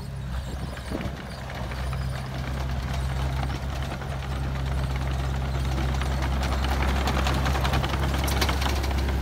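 Komatsu D20A small crawler dozer's diesel engine running steadily, with its steel tracks clanking and rattling, growing louder as the dozer comes close.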